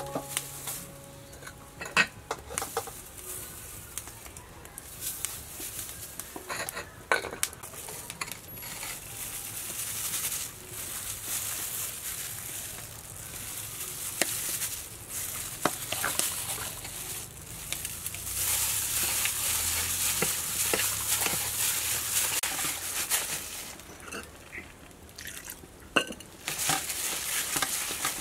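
Minced pork being stirred and kneaded by a plastic-gloved hand in a stainless steel bowl, a steady hissy mixing noise with a few sharp clinks against the bowl.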